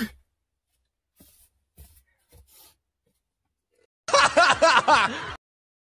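A person laughing in a burst of about a second and a half, about four seconds in, after a few faint clicks.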